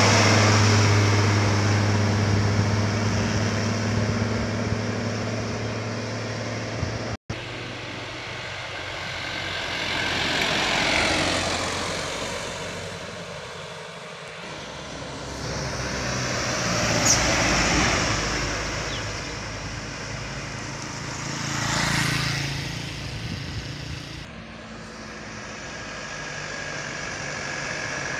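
Diesel engine of a heavily loaded cargo truck pulling hard up a steep grade as it passes, with a strong low hum that fades over the first several seconds. After a break, three vehicles go by one at a time, and near the end another loaded truck's diesel engine grows louder as it approaches.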